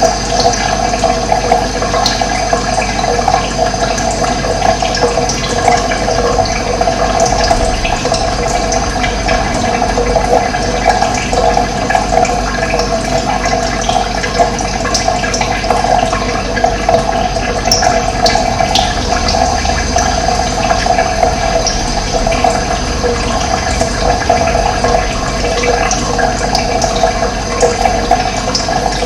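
Running water, a steady continuous flow.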